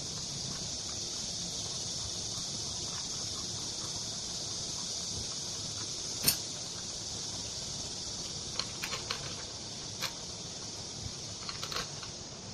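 Hand tool and engine parts clicking against each other while a Honda GX35 trimmer engine is assembled by hand: one sharp click about six seconds in, then a scatter of light clicks and taps near the end, over a steady high-pitched hiss.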